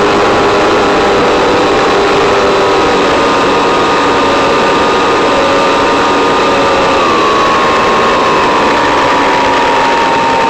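Electric model plane's motor and propeller heard from on board, throttled back to about half an amp in a descending glide: a steady whine of several tones over rushing air noise, slowly falling in pitch with a small drop about seven seconds in.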